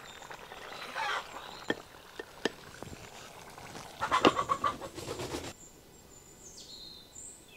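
A spatula scrapes and taps against a pot as a thick chicken curry is stirred. About four seconds in, a lid is scraped into place on the pot's rim, the loudest sound. Birds chirp briefly near the end.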